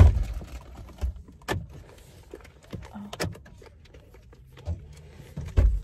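Scattered clicks and knocks inside a car cabin over a low, steady rumble, with a heavy thump at the start and another near the end.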